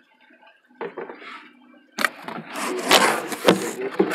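Cardboard packaging being handled and unfolded: rubbing and scraping with several sharp knocks. It is quiet at first and gets loud about halfway through.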